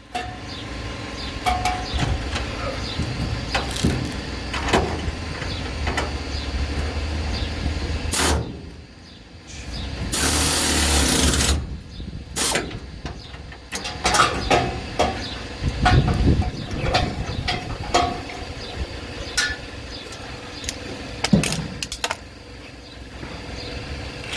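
Work on a truck's exhaust pipes: a steady low hum for the first several seconds, a loud hissing burst about ten seconds in, then scattered metallic clicks and knocks.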